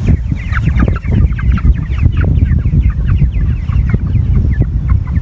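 Many chickens clucking in quick, short calls over a heavy low rumble.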